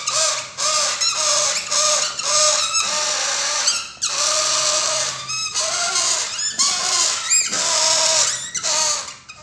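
Rubber balloon squealing in a run of wavering, honk-like squeals over a steady hiss, as air is let out through its stretched neck.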